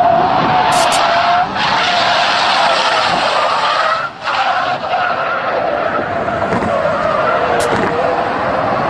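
Car tyres squealing through a long sideways drift: one sustained, wavering squeal over a rushing noise, breaking off briefly about four seconds in.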